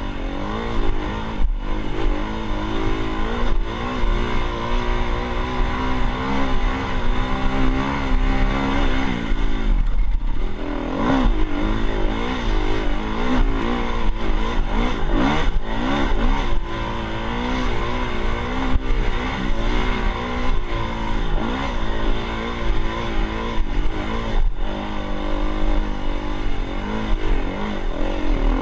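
Dirt bike engine running under way, its pitch holding fairly steady for the first several seconds, dipping briefly, then rising and falling again and again as the throttle is worked.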